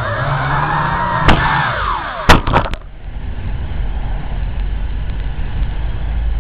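WLToys V666 drone's motors and propellers whining, their pitch wavering up and down. A click comes just over a second in. About two and a half seconds in, several sharp knocks as the drone hits the ground, and the whine cuts off, leaving a steady rumbling noise.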